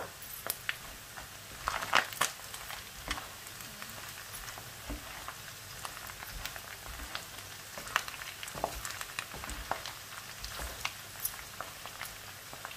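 Boiled pork pieces frying in their rendered fat in a pan, with chillies just added to the hot fat: a steady sizzle broken by scattered sharp pops and crackles, the loudest about two seconds in.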